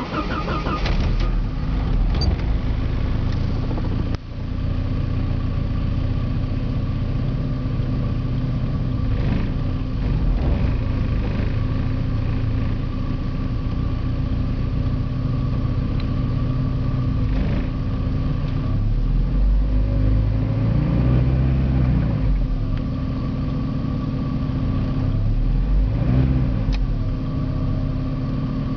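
Porsche 951's turbocharged 2.5-litre four-cylinder engine catching at the very start, then idling roughly, with its running wavering and unsteady.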